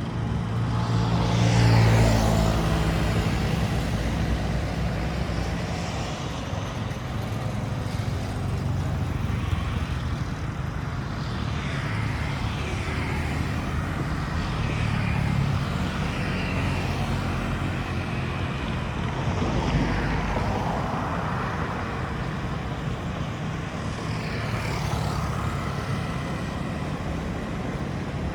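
Street traffic: motor vehicles passing one after another with engine hum and pitch sweeping as each goes by, the loudest pass about two seconds in.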